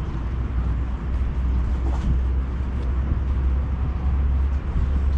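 Outdoor street ambience dominated by a steady low rumble, with a faint tick about two seconds in.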